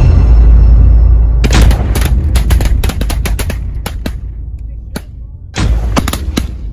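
Volley of shotgun blasts from duck hunters firing at ducks overhead: a loud blast right at the start, a quick, irregular string of sharper shots from several guns, then another loud blast about five and a half seconds in.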